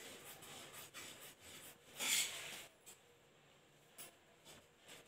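Scissors cutting through saree cloth, a rasping, rubbing sound with fabric rustling, loudest about two seconds in, followed by a few short clicks.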